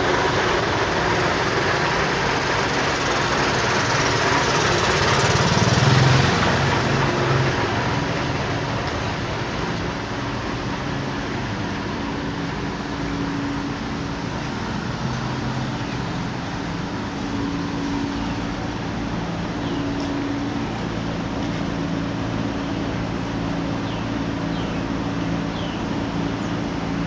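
Engines of trucks and cars idling in stationary traffic, heard from close beside the queued vehicles. The hum swells to its loudest about six seconds in, then settles to a steady drone.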